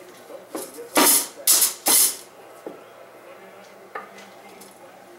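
Metal grilling utensils clattering in a kitchen drawer as a baby rummages through them: three loud clanks in quick succession about a second in, then a few faint clicks.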